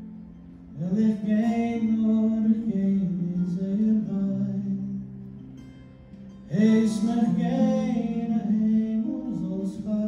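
A man sings a slow Yiddish song to his own strummed acoustic guitar. There are two long phrases, the second starting about six and a half seconds in.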